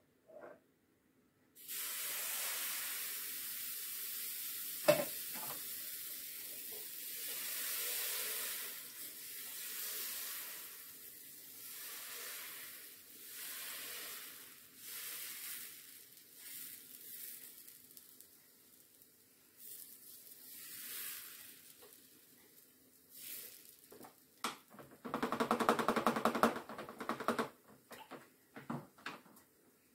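Crêpe batter sizzling as it hits the hot plate of an electric crêpe maker, starting suddenly and swelling and easing in waves as it is spread, then fading as the crêpe sets. There is a sharp click about five seconds in and a brief louder clatter near the end.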